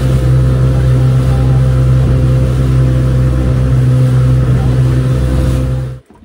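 Small fishing boat's engine running steadily under way, a loud even hum with wind and water hiss over it; the sound cuts off abruptly near the end.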